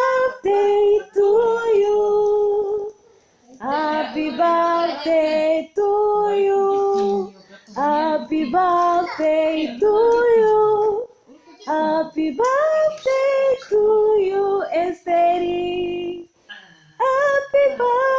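A woman and children singing together without accompaniment, in phrases of held notes with short breaks between them.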